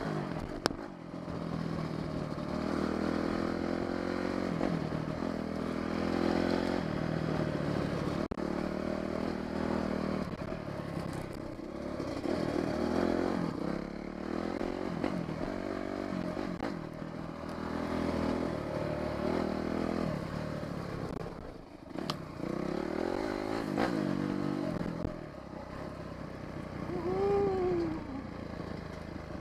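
Dirt bike engine running under the rider, revving up and down over and over, its pitch rising and falling with throttle and gear changes as it climbs and descends the trail.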